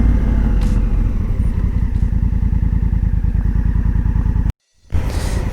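Motorcycle engine running steadily with a rapid, even beat. The sound drops out for a moment about four and a half seconds in, then resumes.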